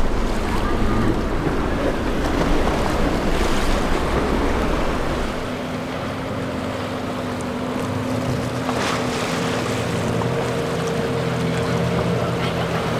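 Outboard-powered small boats running fast through choppy inlet water, engine noise mixed with waves, spray and wind buffeting the microphone. About five seconds in, the sound turns into a steadier engine drone with a clear held hum that rises slightly toward the end.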